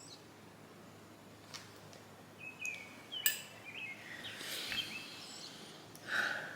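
Faint short high chirps, like bird calls, over a low background hiss, with a sharp click a little over three seconds in.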